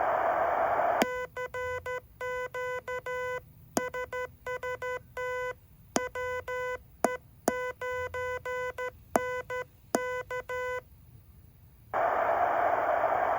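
Morse code sent on a Heathkit HW-8 transceiver: a steady sidetone keyed on and off in dots and dashes, with sharp clicks at several key-downs. Receiver hiss comes before the sending and returns near the end, once the rig is back on receive.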